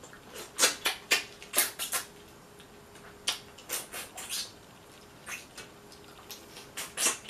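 Irregular sharp crackles and clicks of cooked Dungeness crab shell being picked apart by hand, with the mouth sounds of eating the crab meat.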